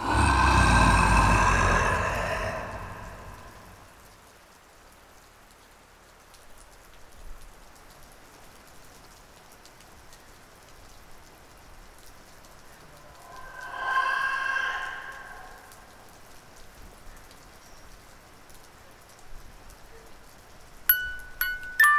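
Horror film soundtrack over a steady rain-like hiss. It opens with a loud, sudden sound effect, a deep boom with a high ringing layer that fades over about three seconds. A shorter pitched swell rises and falls midway, and bell-like chiming notes begin near the end.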